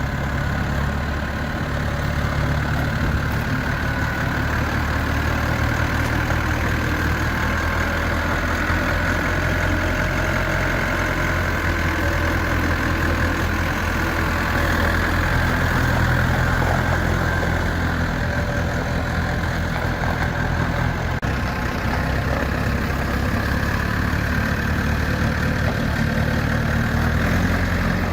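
1995 JCB 210S backhoe's diesel engine running steadily near idle.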